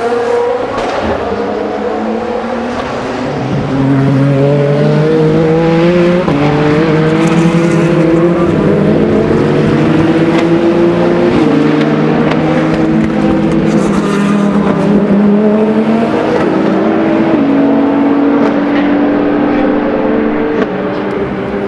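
Race car engine pulling hard through the gears: its pitch climbs steadily, then drops abruptly at each upshift, several times over.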